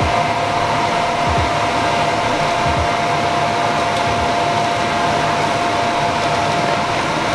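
Electric blower of an inflatable bounce house running steadily: a constant rushing air noise with a steady whine. A few soft low thumps of someone climbing on the inflatable slide.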